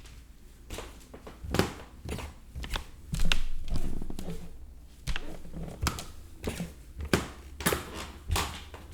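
Footsteps on creaking stairs: a series of knocks and creaks from the treads, roughly one step every half second to second. The loudest is a longer, drawn-out creak about three seconds in.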